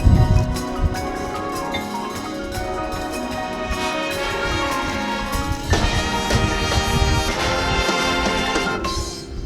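High school marching band playing: sustained brass chords over drums, growing fuller about halfway through and breaking off just before the end.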